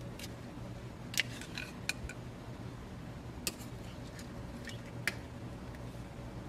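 An orange plastic ladle scooping soy-marinated crab pieces from a stainless steel tray onto a small ceramic plate: a handful of light, separate clicks and taps, over a steady low hum.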